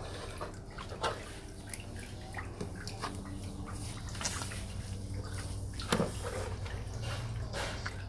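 Wet mud and water being handled in a toy play set: scattered small drips, taps and wet clicks, with a slightly louder one about a second in and another about six seconds in, over a steady low hum.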